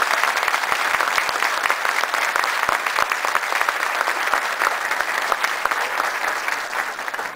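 Audience applauding: many people's hands clapping together in a steady, dense round that eases slightly near the end.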